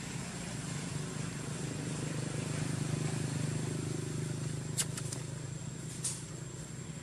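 A motor vehicle's engine running steadily as it passes, swelling louder midway and easing off. There are a couple of sharp clicks near the end.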